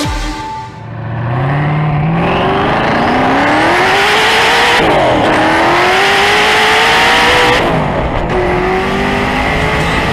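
Hennessey Venom GT's twin-turbocharged V8 at full-throttle acceleration, its pitch climbing steadily through each gear. Two upshifts about five and eight seconds in each drop the pitch sharply before it climbs again.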